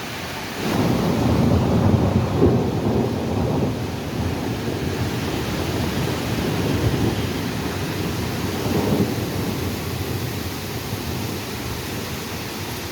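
Steady rain, with a long rumble of thunder that rolls in about a second in and dies away over several seconds, swelling once more near the end.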